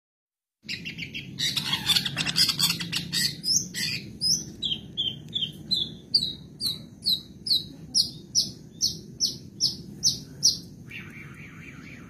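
Long-tailed shrike (cendet) singing. A dense jumble of chattering notes gives way to a run of sharp, repeated whistled notes, about two to three a second, and then a harsher scratchy phrase near the end.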